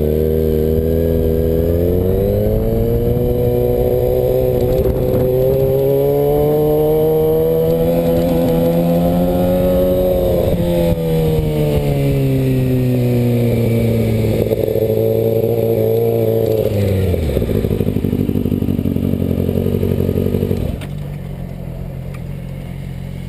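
Kawasaki Ninja ZX6R's 600cc inline-four running through a Competition Werkes aftermarket exhaust while riding: the engine note climbs slowly in pitch as the bike pulls, then falls away as it slows and settles into a low steady note. About 21 seconds in it suddenly gets quieter.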